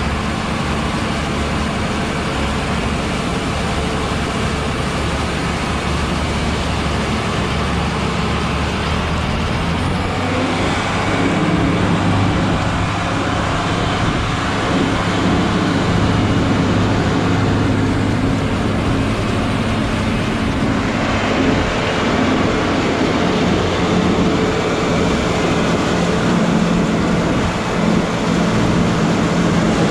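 Large diesel farm machinery engine running steadily; about eleven seconds in its note shifts higher and it gets a little louder.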